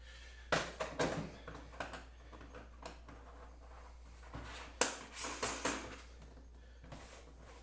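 Light knocks and rattles of hard plastic parts being handled and set down while an enclosure is assembled. They come in two short clusters, about half a second to a second in and again around five seconds in.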